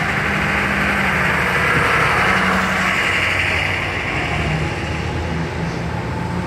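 Military convoy vehicles, Humvees and trucks, driving past on a wet street: steady engine noise with tyre hiss on the wet road.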